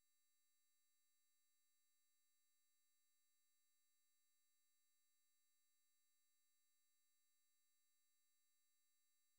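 Near silence: only a very faint, steady digital noise floor.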